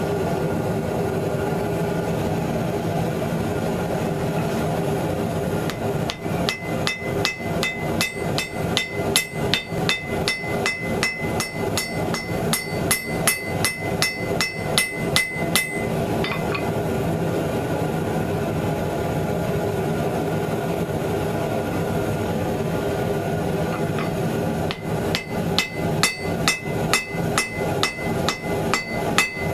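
Hand hammer forging a glowing damascus steel billet on an anvil: a run of sharp, evenly spaced blows with a ringing anvil note, starting about six seconds in, pausing near the middle, and starting again near the end. Steady background noise runs underneath.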